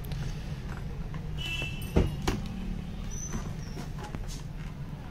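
Two sharp plastic clicks, a quarter of a second apart, as a plastic side piece is pressed into place on a motorcycle helmet's shell, over a steady low hum.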